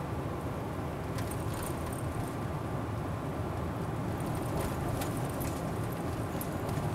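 Inside a car's cabin while driving slowly: a steady low rumble of engine and tyres on the road, with a few light ticks.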